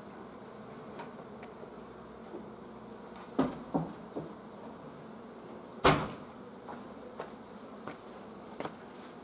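Honeybees buzzing steadily around an open hive box, with a few sharp wooden knocks from hive frames being handled; the loudest knocks come about three and a half and six seconds in.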